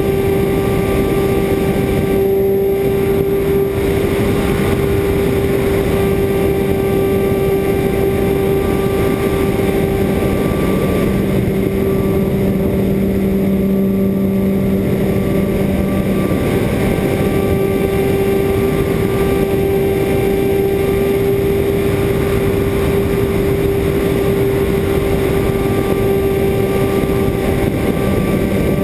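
Great Planes Edge 540 radio-control aerobatic plane's motor and propeller running steadily in flight, heard from a camera on board, with wind rushing over the microphone.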